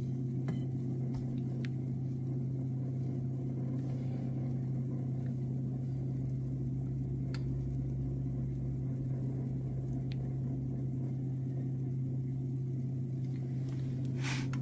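Steady low mechanical hum, even in level throughout, with a few faint light clicks.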